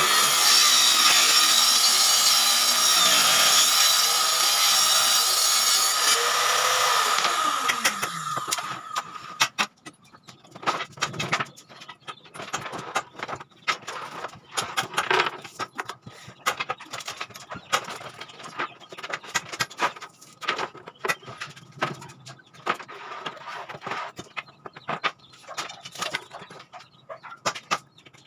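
A table saw runs steadily, then is switched off about seven seconds in, its whine falling in pitch as the blade coasts down. After that come scattered taps, knocks and scrapes from work on plywood sheets with a straightedge.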